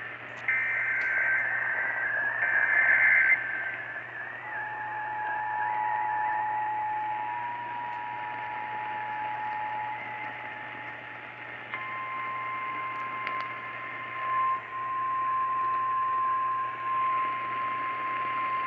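Emergency Alert System tornado-warning signal over a hissing radio. First come two short bursts of warbling digital header data. Then a steady two-note attention tone sounds, and about twelve seconds in a single higher steady alert tone takes over.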